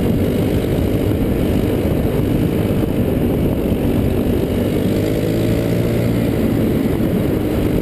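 Go-kart's small petrol engine running steadily at speed, heard from on board the kart.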